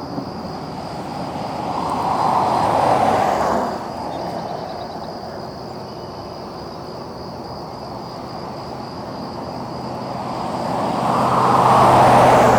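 Two cars passing by on a road one after the other, each building up to a peak and then dropping off quickly. The first passes about three seconds in, the second near the end.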